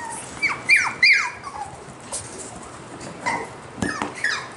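Cockapoo puppies, about six and a half weeks old, whimpering and yipping: short high cries that fall in pitch, three in quick succession about half a second to a second in and a couple more near the end, with a few light clicks between.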